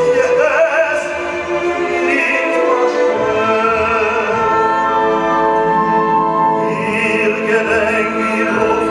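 A male singer sings in an operatic, cantorial style with full symphony orchestra accompaniment, the strings carrying sustained lines under the voice. Near the middle he holds one long note.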